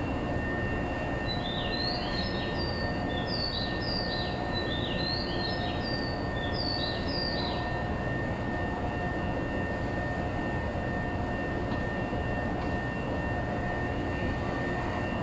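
Tobu 800 series electric train standing at the platform, its on-board equipment running with a steady hum and a thin high whine, heard from the cab. From about a second in to past the middle, a string of short, high chirps, each falling in pitch, sounds over it.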